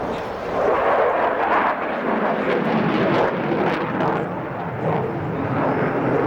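Aircraft engine noise at an air display, a steady, loud rush of sound.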